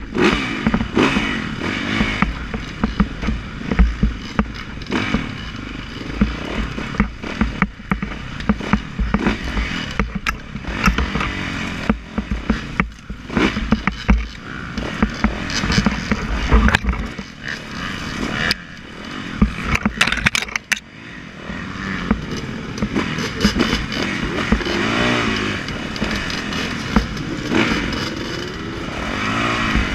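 On-board sound of a 2015 Yamaha YZ450F's single-cylinder four-stroke engine, revving up and falling back over and over as the bike is ridden slowly along a rough wooded trail. Frequent short knocks and clatter run through it.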